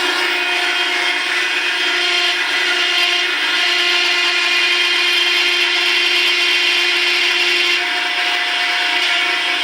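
A hydraulic rear-axle assembly machine for Peugeot 206/207/106 axles running with a steady, loud mechanical whine and several fixed tones.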